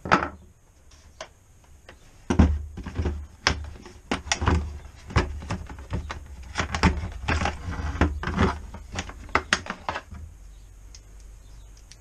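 A hand tool set down on a wooden workbench with a knock, then, from about two seconds in, a busy run of clattering knocks and clicks as tools are rummaged through for a torque wrench, dying down about ten seconds in.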